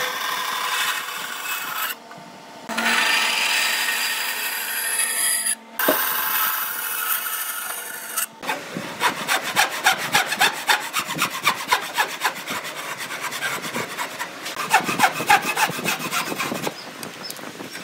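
Wood being worked by hand with a saw- or rasp-like tool: rough scraping strokes, cut into several short segments, then a long run of quick, closely spaced strokes from about halfway in.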